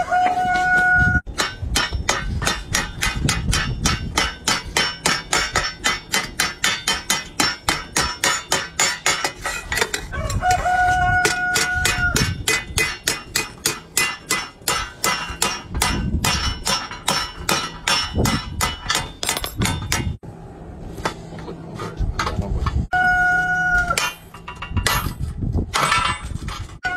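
Mechanical spring hammer pounding a sheet-steel wok on an anvil block, a rapid regular run of metallic strikes, several a second, that pauses briefly near the end. A rooster crows three times over the hammering.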